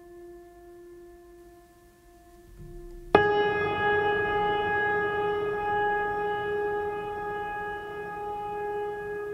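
Background music of long held notes: a soft sustained tone, then about three seconds in a much louder held note with rich overtones enters suddenly and sustains.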